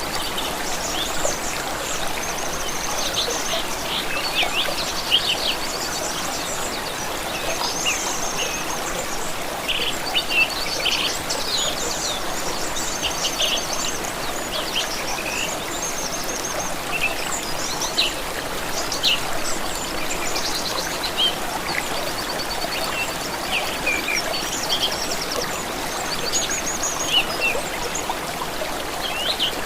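Small stream of water running steadily, with several songbirds chirping and trilling over it throughout.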